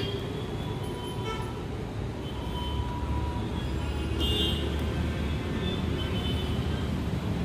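Road traffic: a steady engine rumble with short horn toots coming and going.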